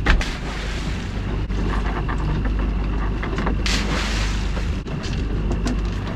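Small outboard motor running under steady wind noise on the microphone, with a knock at the start and a lobster pot splashing into the sea about four seconds in.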